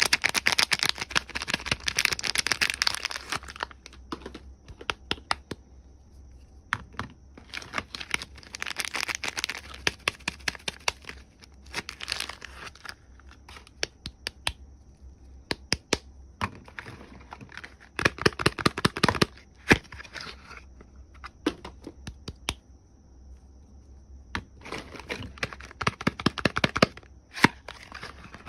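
Soap packaging being unwrapped by hand: crinkling and tearing of the wrapper in four spells, with scattered single clicks and taps between them.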